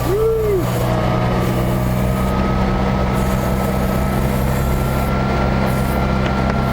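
Tucker Sno-Cat running steadily as it climbs through deep snow, a constant engine and drivetrain drone with a steady high whine over it. A short squeak rises and falls just after the start.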